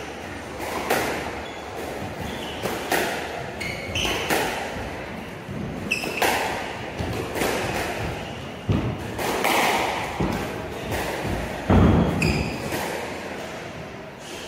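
Squash rally: the ball smacking off racquets and the court walls about once a second, echoing in the court, with short squeaks of court shoes on the wooden floor and one heavier thump near the end, the loudest sound.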